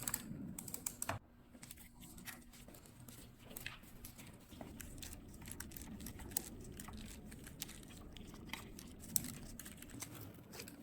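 Scattered light clicks and taps from hands working the brake cables and handlebar of an electric scooter.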